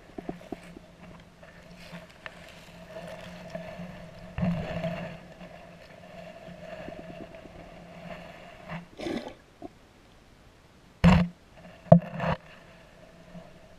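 Muffled underwater sound through a GoPro's waterproof housing as it is moved through water weed: a faint steady hum, with a few knocks and thuds, the loudest a pair about eleven and twelve seconds in.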